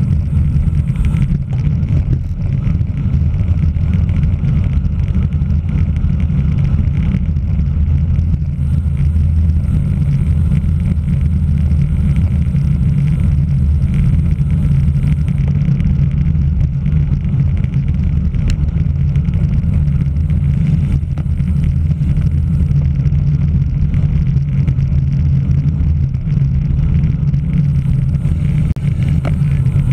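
Steady low rumble of wind buffeting a camera microphone carried on a bicycle at racing speed.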